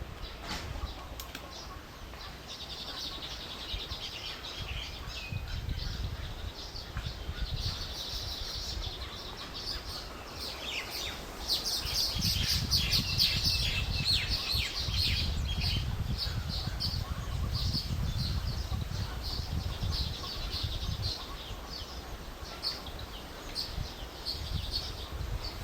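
A flock of small weaver birds chattering with many quick, high chirps, growing busier and louder about halfway through. A low rumble runs underneath.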